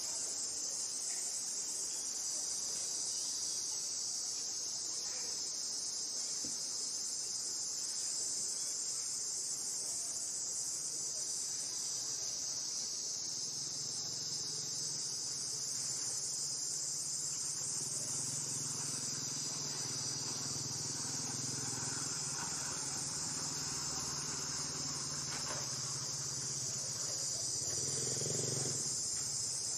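Steady, high-pitched drone of an insect chorus of crickets or cicadas, unbroken throughout. About halfway through, a low steady hum joins underneath it.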